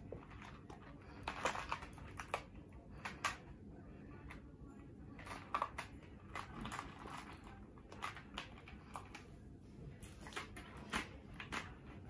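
Faint, scattered clicks and clinks of bead and chain necklaces being handled and sorted through.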